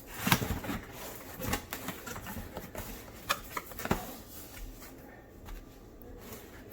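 Cardboard box being opened and its packaging handled: several sharp rustles and clicks of cardboard flaps and paper in the first four seconds, then fainter handling.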